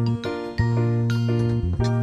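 Background music: a melody of short notes over held bass notes.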